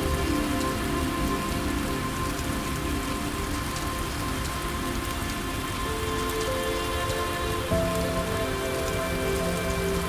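Steady rain falling, with soft calming music of held notes underneath; new notes come in around six and eight seconds in.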